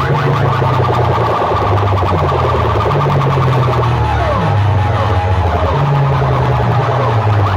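Loud electronic dance music blasted through banks of metal horn loudspeakers. A heavy bass line steps between notes beneath fast, repeated rising electronic sweeps that sound like an alarm.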